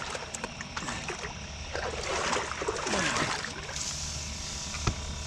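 Water splashing and trickling in the shallows, with scattered small clicks and rustles of handling.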